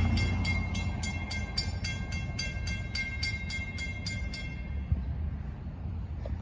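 Long Island Rail Road DM30AC-led passenger train passing with a steady low rumble. Over it a bell rings about three times a second and stops about four seconds in.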